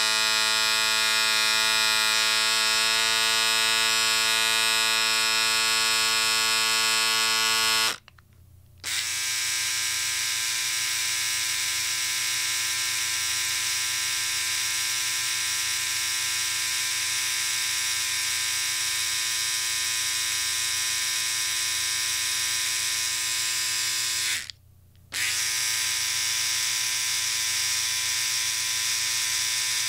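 Electric shaver buzzing steadily. It stops for about a second twice and starts again, and after the first stop its buzz is quieter and a little lower.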